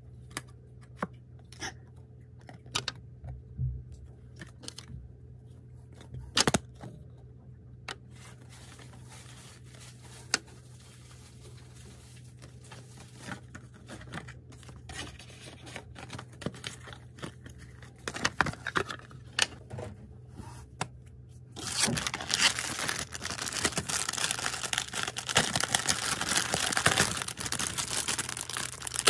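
Scattered light clicks and taps as photocards and a clear plastic case are handled. About two-thirds of the way in, this gives way to continuous, louder crinkling of plastic wrapping being handled.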